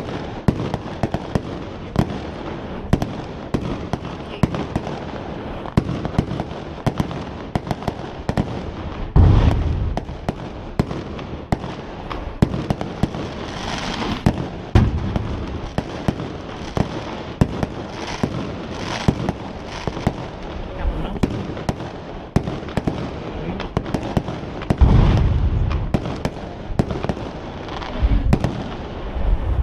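Aerial fireworks bursting: a steady crackle of many small sharp reports, with heavier low booms about a third of the way in, around halfway, and again near the end.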